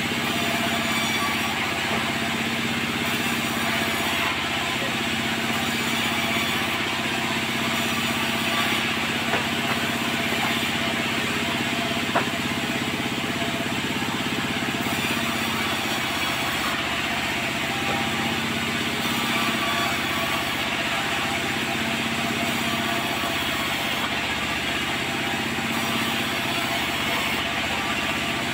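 Sawmill machinery running steadily: a constant engine-like hum under a wide band of mechanical noise, with two brief sharp knocks partway through.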